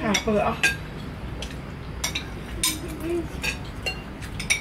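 Metal spoons and forks clinking and scraping against ceramic plates as several people eat, with scattered sharp chinks throughout.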